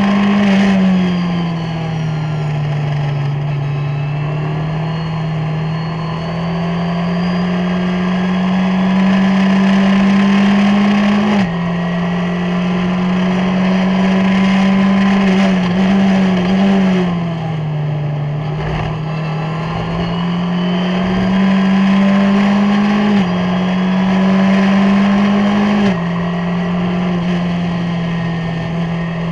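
Onboard sound of a Skip Barber formula race car's 2.0-litre SOHC four-cylinder engine at racing speed. The pitch sinks as the car slows for corners near the start and just past the middle, climbs steadily under full throttle on the straights, and drops sharply at upshifts about a third of the way in and twice near the end.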